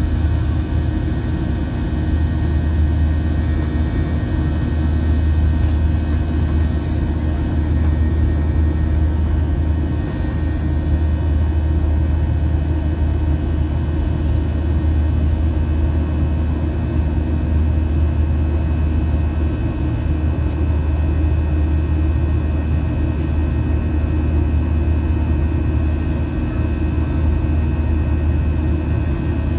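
Steady cabin noise of a Boeing 737-700 climbing after takeoff, heard from inside the cabin: its CFM56-7B turbofans and the rushing airflow make a deep, even rumble with a few faint steady tones above it.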